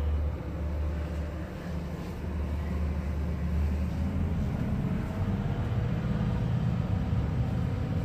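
Steady low drone of a river cruise boat's engines heard inside a cabin, its hum moving up in pitch about halfway through.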